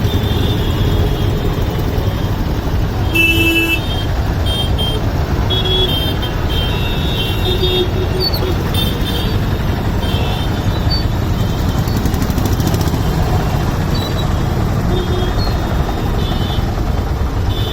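Congested road traffic: vehicle engines rumbling steadily, with frequent short horn honks throughout.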